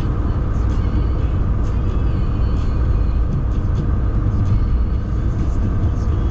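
Semi-truck cruising on the highway, heard from inside the cab: a steady low rumble of engine and road noise.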